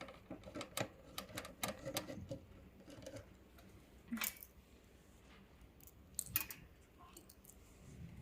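Scattered clicks, taps and light rattles of hand tools, screws and metal parts being handled while a beauty machine's power supply is taken apart. The clicks come thickly for the first three seconds, then one louder tap about four seconds in and a short cluster past six seconds.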